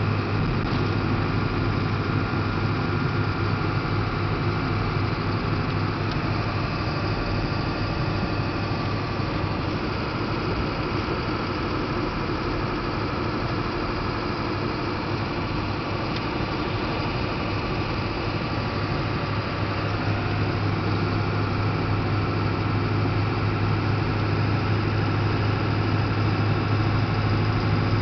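Ford 7.3-litre V8 diesel engine in a pickup running steadily with a deep, even drone.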